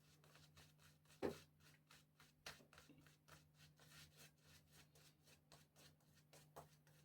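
Faint, quick strokes of a badger-hair shaving brush working up lather, about five strokes a second, with one soft knock about a second in.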